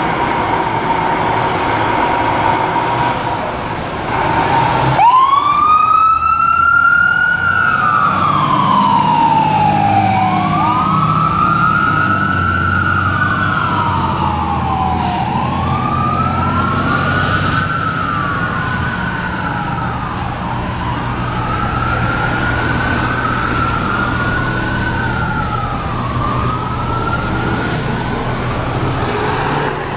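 Fire rescue truck's siren starting up about five seconds in and wailing in repeated cycles, each a quick rise in pitch and a slower fall, over the rumble of the truck's engine. A steady high tone sounds before the siren comes on.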